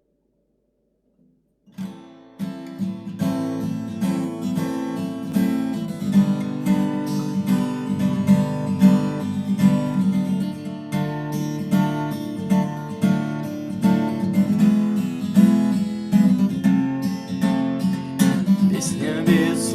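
Acoustic guitar strummed in a steady rhythm, playing a song's intro; it starts after about two seconds of silence.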